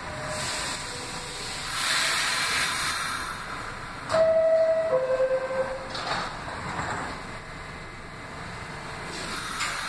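R46 subway car's door-closing chime, a loud two-note falling ding-dong about four seconds in, followed by the doors sliding shut with knocks a second or two later. A hiss of air comes earlier, about two seconds in.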